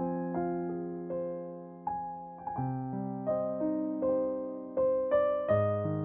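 Background piano music: notes struck every half second or so over held chords, each note fading away.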